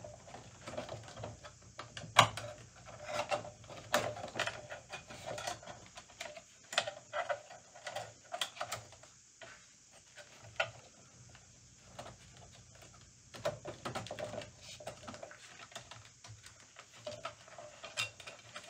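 Irregular clicks, taps and light rattles of a steel bandsaw blade being worked into the blade guides and over the wheels of a Milwaukee M18 Deep Cut portable bandsaw, the blade knocking against the tool's housing. There are a couple of quieter pauses.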